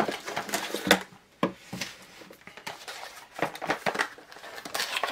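A small cardboard accessory box being handled and opened: scattered light knocks and clicks with rustling of packaging, busiest about a second in and again in the last second and a half.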